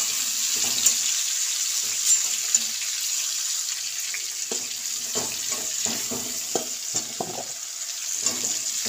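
Mustard oil sizzling steadily in an aluminium kadai as fried pumpkin and potato pieces are lifted out with a metal spatula and ladle. Scattered scrapes and taps of the metal utensils against the pan and a steel bowl, more of them in the second half.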